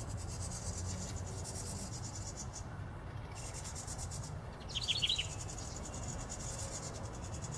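A steady, high, fast-pulsing insect trill that breaks off briefly a few times. About five seconds in comes a quick run of a few high bird chirps, the loudest moment.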